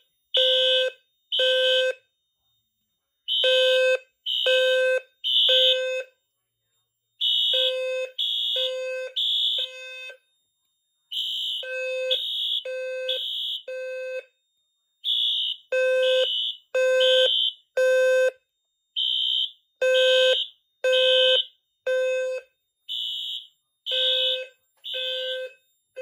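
Fire alarm intelligent sounder bases (System Sensor B200S) sounding the temporal-3 evacuation code in alarm: three low, buzzy beeps, a short pause, repeating about every four seconds. Two sounders sound slightly out of step.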